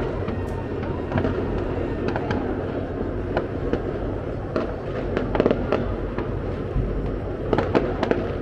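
Distant fireworks and firecrackers going off all over the city, scattered sharp cracks and pops over a steady rumble, with quick clusters of louder bangs about halfway through and again near the end.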